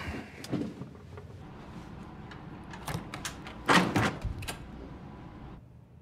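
A door being opened: several sharp latch and handle clicks, then a louder knock-and-swing cluster about two thirds of the way in, over low room noise.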